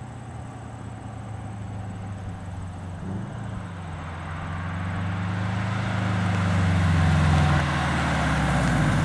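Bug-eye Subaru WRX's turbocharged flat-four engine running as the car drives toward the listener. The engine note grows steadily louder as it approaches, with a brief rise in pitch about three seconds in and a slight dip in level near the end.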